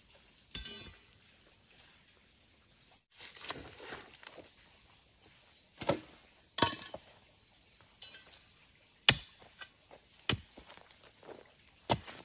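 Irregular knocks and chopping strikes, about seven spread unevenly, the loudest about nine seconds in. Behind them runs a steady high-pitched drone of insects.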